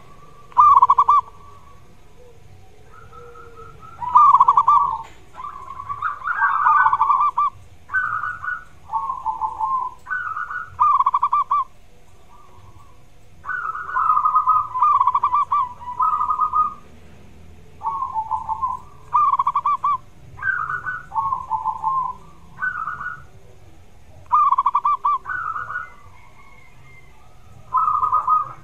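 Zebra dove (perkutut) singing: many short phrases of quick, pulsing cooing notes, with brief pauses between them.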